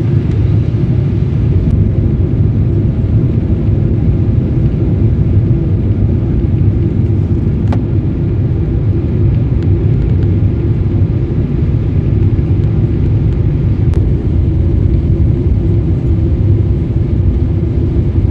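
Steady low rumble of airliner cabin noise, the engines and airflow heard from inside the plane in flight.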